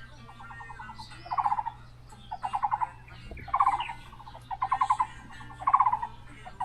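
A bird calling over and over: short rattling trills, each well under half a second long, repeated about once a second.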